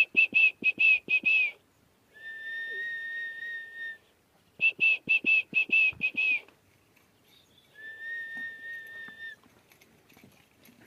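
Whistling in a repeating phrase. A quick run of about eight short, sharp notes comes first, then a long steady lower note, and the phrase plays twice. It fades out near the end.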